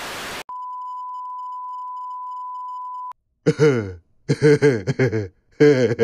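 A burst of TV-static hiss cuts off, then a steady high censor bleep runs for under three seconds. After it come three short bursts of a comic cartoon voice that slides in pitch.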